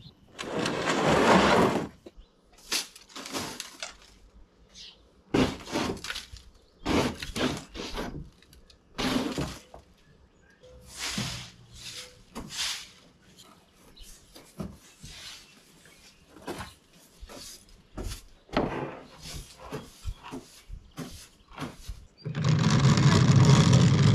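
A broom sweeping leaves and debris out of a canoe in irregular strokes, then near the end a loud, steady scraping as the canoe is dragged across the asphalt driveway.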